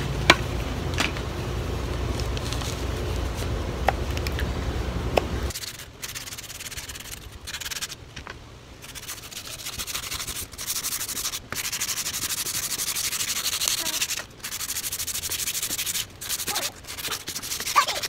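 Sanding sponge rubbing back and forth over a carved wooden walking-stick handle, a scratchy hiss in strokes with short breaks. Before it, for the first few seconds, a few light knife cuts into the wood over a low steady hum.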